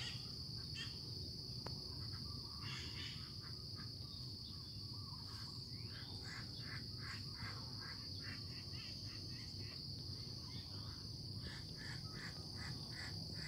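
Steady high-pitched insect chorus, with many short chirps scattered through it over a low rumble.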